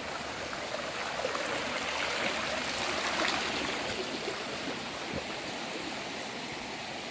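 A small forest stream rushing steadily, a little louder a couple of seconds in.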